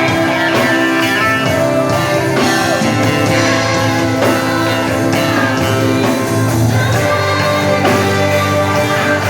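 A song played by a band, with guitar and a singing voice.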